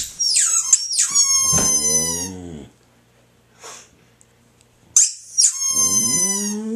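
A squeaky dog toy squeezed in two goes, each a high squeal that slides down in pitch, while a boxer dog howls along; a low howl rises near the end.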